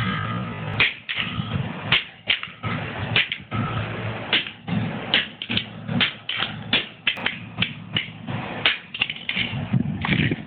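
A hammer striking again and again on an anvil, smashing a small LCD alarm clock; sharp, irregular knocks about two or three a second.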